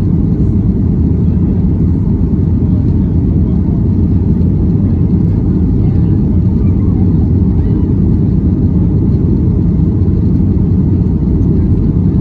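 Steady, low cabin noise inside a Boeing 737 MAX 9 climbing after takeoff: its CFM LEAP-1B turbofans at climb power and the rush of air along the fuselage, heard through the cabin wall.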